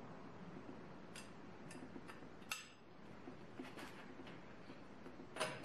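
Scattered metallic clicks and clinks of a 21 mm socket and breaker bar being handled, about half a dozen in all, the loudest near the end with a brief ring.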